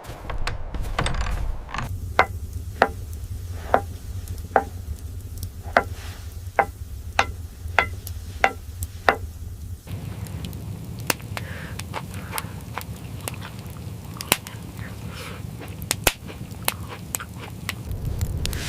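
Wood being chopped: about a dozen sharp knocks, a little under one a second, each with a short ring. About halfway through they give way to a low rumble with scattered crackles.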